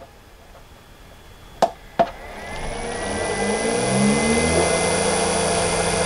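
Two clicks of the keypad buttons on a variable frequency drive, then a three-phase electric motor spinning up under the drive: a hum rising in pitch for about two seconds with a thin high whine, then running steadily at speed.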